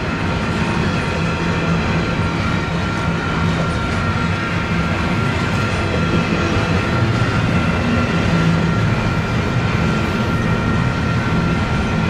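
Container freight train rolling steadily past: a continuous rumble of wheels on rail with light clickety-clack and a thin steady high whine over it.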